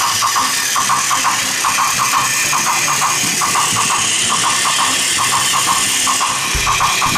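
Battery-powered Plarail toy train running on plastic track: the small motor and gears whir loudly and steadily, with quick rhythmic clicking of about five clicks a second.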